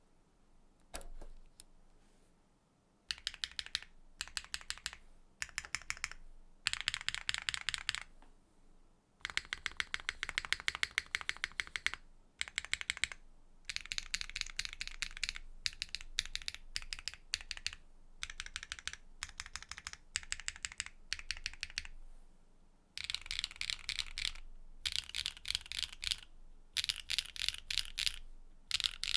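Typing on a Neo65 65% mechanical keyboard fitted with a carbon-fibre plate and Keygeek PA switches. The keystrokes come in quick runs of a second or three, with short pauses between them.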